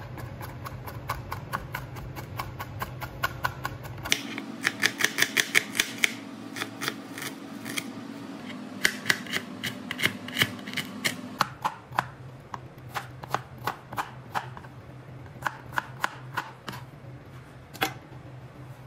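Chef's knife chopping garlic and then ginger on a plastic cutting board: quick runs of sharp knife strikes, up to about four a second, with short pauses between runs.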